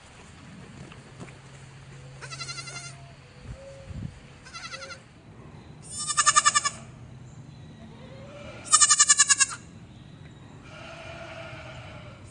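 Goat bleating several times: about five quavering calls, the loudest two about six and nine seconds in, with a fainter one near the end.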